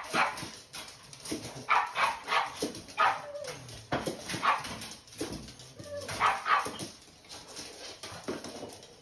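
Pugs barking and yipping in repeated short bursts, excited as their dinner is being got ready.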